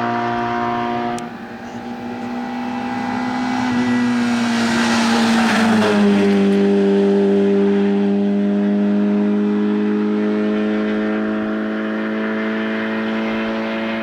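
Racing car engine at high, steady revs passing by: it grows louder, its note drops in pitch as it goes past about halfway through, then it holds a steady note while fading as it draws away up the course. A different engine note breaks off about a second in.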